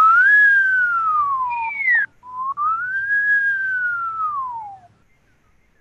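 A person whistling a single clear note in two long phrases, each gliding up and then slowly down in pitch. The first ends with a brief higher note just after two seconds in, and the whistling stops near the end.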